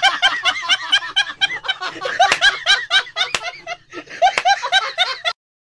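A person laughing in a quick run of short "ha" bursts, about five a second, that cuts off abruptly just before the end.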